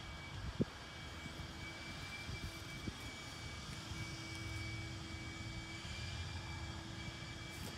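A steady engine drone over a low rumble, with one sharp click about half a second in.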